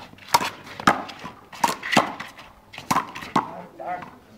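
Rally in one-wall handball: a small rubber ball is struck by hand and smacks off the concrete wall and court, giving about six sharp slaps in a little over three seconds.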